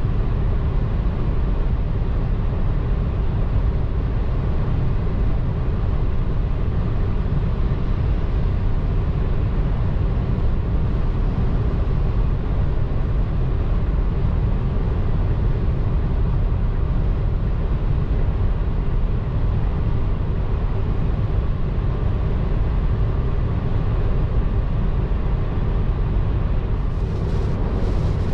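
Steady road and wind noise of a car driving at motorway speed: a constant low rumble that holds level without rising or falling.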